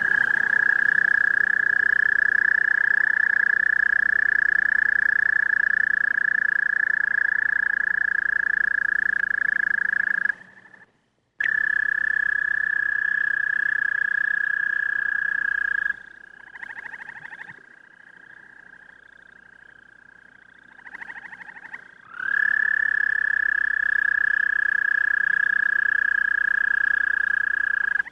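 Male American toad giving its long, steady, high musical trill, the breeding call, held at one pitch for many seconds at a time. A short gap breaks it; later it fades to a fainter trill for several seconds, then comes back at full strength near the end.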